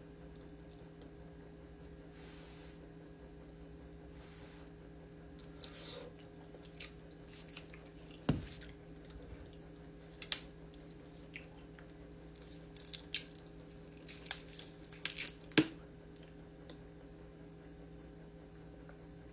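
Close-up eating sounds of someone chewing Hamburger Helper, with scattered sharp clicks and a couple of louder knocks in the middle stretch. A steady low electrical hum runs underneath.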